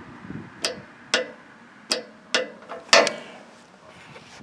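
Click-type torque wrench clicking over on the sawmill's blade-tension bolt: about five sharp clicks, roughly one every half second, the loudest near three seconds in. Each click is the wrench reaching its 25-pound setting, reached with only one finger's pressure.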